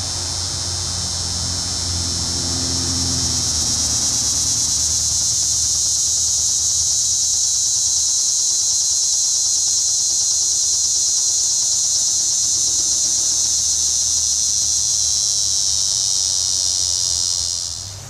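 Linne's cicada (Neotibicen linnei) singing: a loud, steady, high-pitched buzz that swells over the first few seconds, holds, and dies away just before the end.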